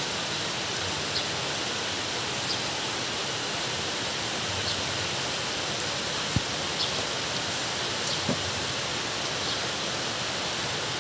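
Steady background hiss, with a few faint clicks and taps from the steering rack's metal parts being handled. The sharpest knock comes about six seconds in.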